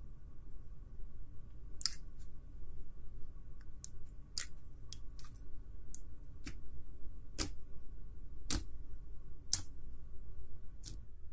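Irregular sharp clicks, about a dozen spread unevenly, over a faint steady low hum.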